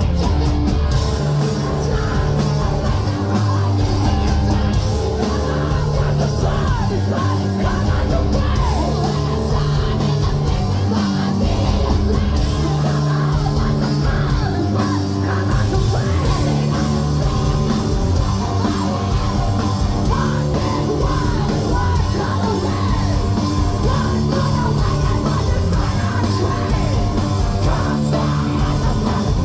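Post-hardcore rock band playing live at full volume, with distorted guitars, bass and drums under yelled, screamed vocals.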